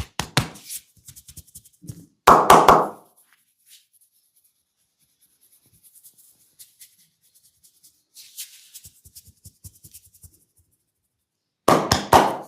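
Hands percussively tapping during a head massage: two quick, loud clusters of four or five slaps, the second near the end. Faint scalp rubbing and scratching lies between them.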